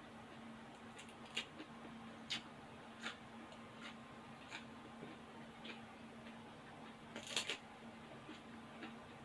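Faint eating sounds: scattered small clicks and taps, with a quick cluster about seven seconds in, over a low steady hum.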